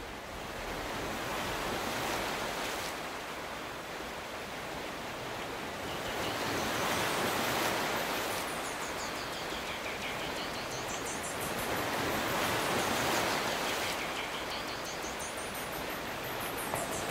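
Surf washing in slow swells, rising and falling every five or six seconds, with a few faint high bird chirps in the second half.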